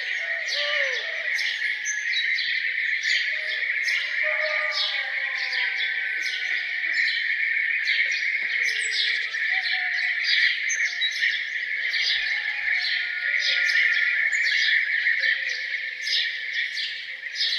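Many songbirds chirping and singing over one another in a morning chorus, with a steady high-pitched drone underneath and a few lower, sliding calls.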